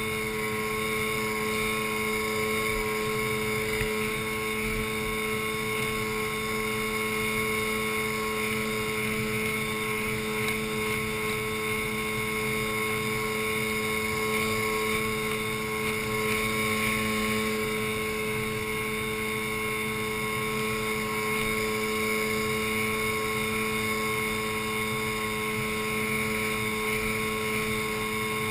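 Outboard motor on an inflatable boat running at a steady cruising speed across the sea, a constant engine hum with no change in speed.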